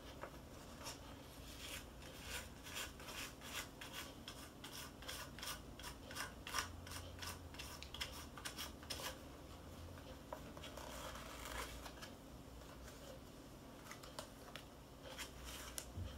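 Small plastic clicks and scrapes from a DIY candy kit's thin white plastic mould tray being handled, tilted and scraped, a quick run of little clicks for several seconds, then a softer rubbing, then a few more clicks near the end.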